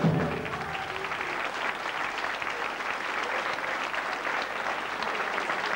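A big band's last chord dies away about half a second in, and the audience applauds steadily.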